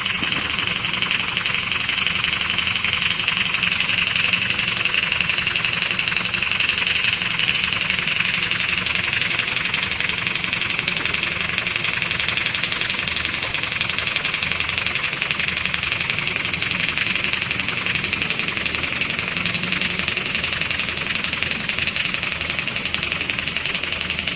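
A motor running steadily at constant speed, with no change in pitch or level.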